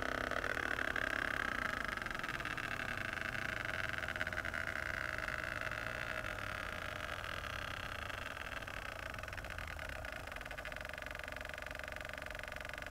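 Massage gun motor running unloaded, heard fast-forwarded, slowly growing quieter as its failing lithium-ion battery pack runs down.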